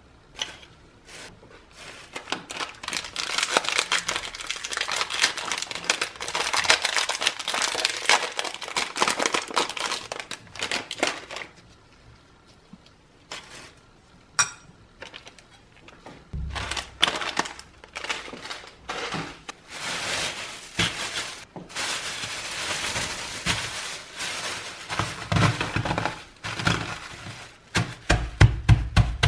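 Thin plastic bag crinkling and rustling as Oreo cookies are handled in it, with a lull in the middle. Near the end, a quick run of low thuds as the cookies are crushed in the bag under a glass bowl for a cheesecake base.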